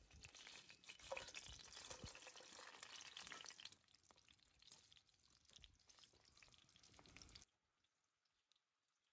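Triangular filled pastries sizzling and crackling in hot oil in a cast-iron skillet. It is loudest for the first few seconds, eases off, and cuts off abruptly near the end.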